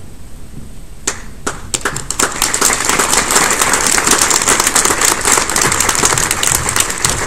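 Audience applause: a few separate claps about a second in, quickly building into steady clapping from many hands.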